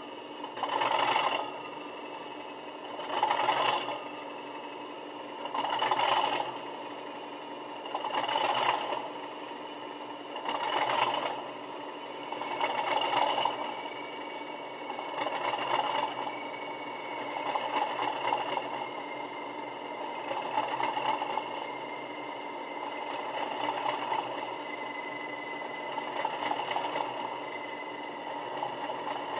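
A Class 37/0 diesel sound file on a LokSound 5 DCC decoder plays through the model locomotive's small speaker, in the optional cold start sequence. The engine swells in regular surges about every two and a half seconds, which grow smoother and less distinct toward the end, over a thin steady whistle.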